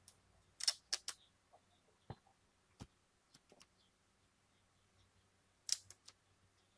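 Thin plastic protective film being peeled and handled on an AirPods charging case, giving short crinkling crackles: a cluster about a second in and another near the end, with a few faint ticks between.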